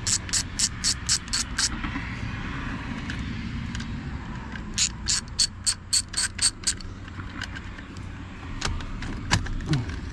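Socket ratchet wrench clicking in two runs of quick, even clicks, about five a second, while backing off the steering-wheel retaining nut; a few knocks near the end.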